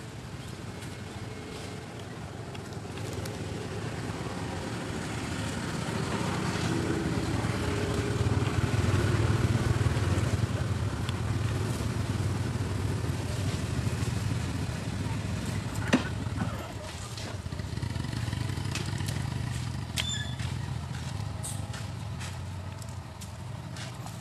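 A motor vehicle's engine running, its low drone swelling over several seconds and then easing off, with a single sharp click about two-thirds of the way through.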